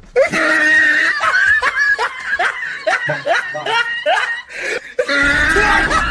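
Laughter: a long run of quick laughs, about three a second.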